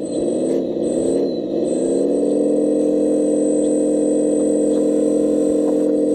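Electric motor of a radio-controlled construction model running with a steady whine. Twice near the start it sags in pitch under a brief load and recovers, then holds level.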